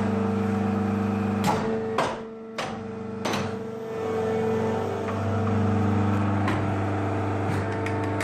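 1985 Schwarze Wirtz 80 CNC MR tube bender running with a steady hydraulic hum. Sharp clunks come about one and a half and two seconds in and again after three seconds. The hum drops lower between about two and four seconds in, then returns to full level.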